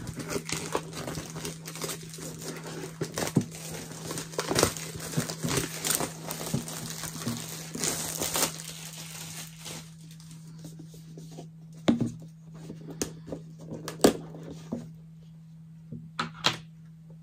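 Clear plastic wrapping being torn and crinkled off a cardboard coffin-shaped doll box. After about ten seconds it gives way to a few separate taps and clicks as the box is handled and opened.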